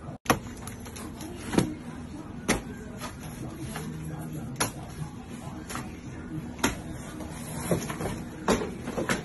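A pizza being cut in its cardboard box with a pizza cutter: scattered sharp knocks and clatter at irregular intervals over a steady kitchen hum.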